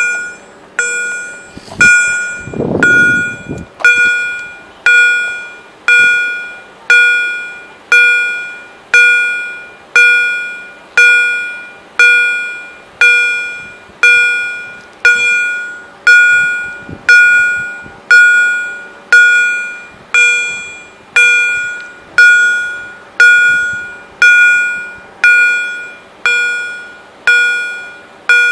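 EHL level-crossing warning bells striking steadily, about one strike a second, each strike ringing out and fading before the next. A brief low whoosh passes about three seconds in.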